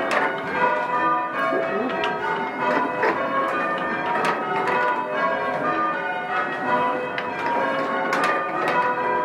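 A ring of six church bells, a mix of bells from different founders, being rung in changes: a steady succession of strokes whose tones overlap and hum on.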